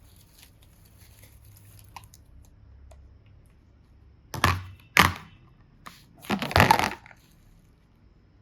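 Handling noises: faint rustling, then three loud crinkling, crushing scrunches, the last and longest near the end.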